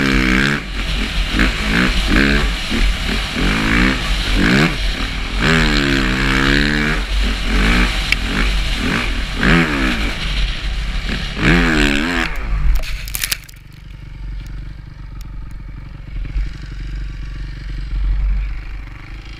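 Dirt bike engine revving up and down over and over as it is ridden hard through sand. About 13 seconds in there is a clatter and the engine noise drops away suddenly as the bike goes down, leaving a low rumble and a few scattered clicks.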